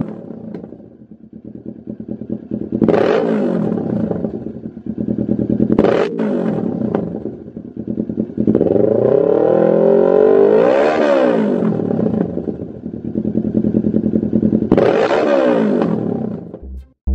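2017 Kawasaki Z650's 649 cc parallel-twin engine running through a Lextek CP1 aftermarket slip-on silencer, idling between rev blips: short blips about three and six seconds in, a longer rev rising and falling in the middle, another blip near the end, then the sound cuts off.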